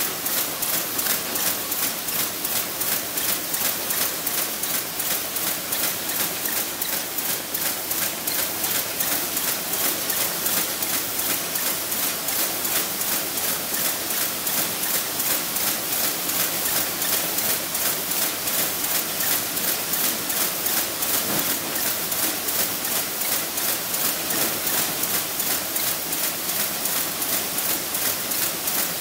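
Mini-cone forming machine running at speed: a fast, even mechanical clatter of regular clicks over a steady whir.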